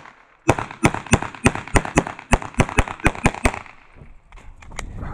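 9mm Glock competition pistol fired in a fast string of roughly fifteen shots, mostly in quick pairs, over about three seconds; a short pause follows while the shooter moves, then shots begin again near the end.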